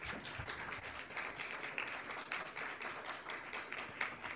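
Audience applauding, a steady patter of many hand claps.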